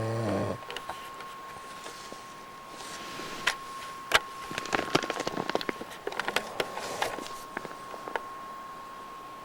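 A man snoring in his sleep: a short low snore right at the start, then a long stretch of irregular crackling and clicking through the middle.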